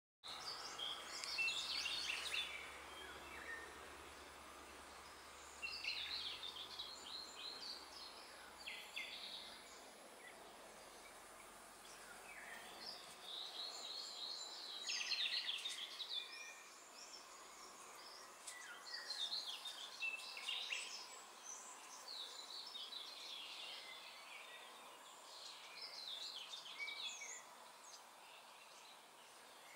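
Small birds chirping and trilling in short bouts every few seconds over a faint steady background hiss.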